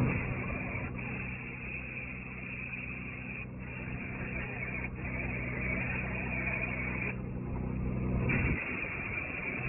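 An engine running steadily at a constant speed, then cutting off suddenly near the end.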